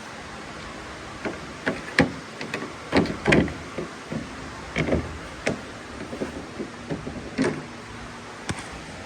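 Irregular clicks, knocks and light clatter of a replacement exterior door handle being handled and test-fitted in a Chevy Tahoe door, loudest around two to three seconds in.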